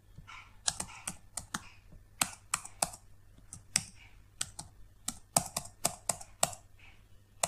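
Computer keyboard keystrokes: irregular clicking at about three keys a second, while data is typed into accounting software.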